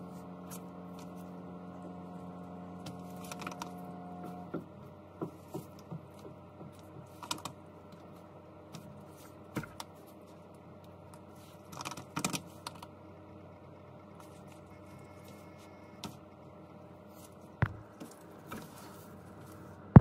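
Keys of an iPad Pro keyboard case being typed on, in short irregular runs of soft key clicks with pauses between. A steady hum runs underneath at first and stops suddenly about four and a half seconds in.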